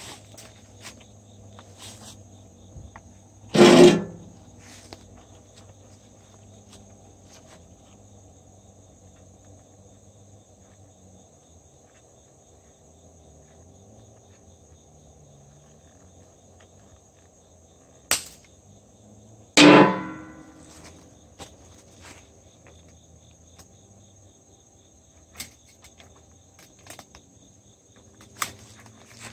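Crickets chirring in a steady, high, even drone. About 4 and 20 seconds in, it is broken by a loud metallic twang that rings out for about a second as taut fence wire is worked. A few fainter clicks and knocks come from handling the wire and chain.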